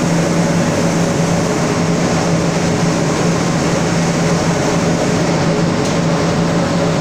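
Comber waste collection system running: a centrifugal suction fan pulling air through sheet-metal ducts, a steady rush of air with a constant low hum and a fainter higher tone above it.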